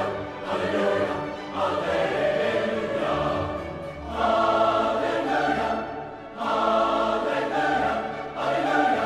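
Background music: a choir singing long held chords in slow phrases, with short breaks about four and six seconds in.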